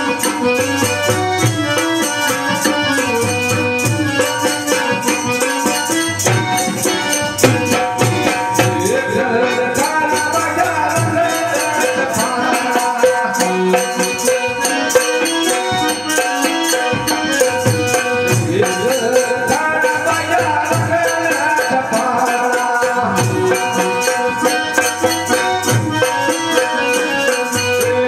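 Kutchi folk music played live: a Bina harmonium sustains steady chords over a fast shaken rattle and regular low drum beats.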